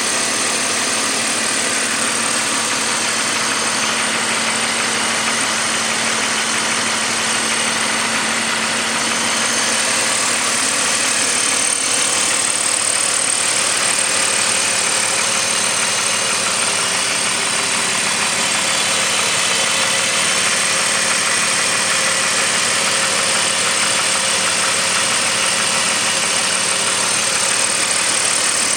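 BMW M54 3.0-litre straight-six engine of a 2002 530i idling steadily, with the knocking noise that the owner is trying to track down.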